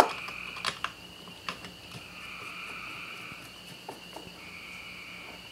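A sharp metallic click, then a few lighter clicks and taps of small metal parts as screws are started by hand into a 47 cc two-stroke engine's crankcase, over a steady high trill of crickets.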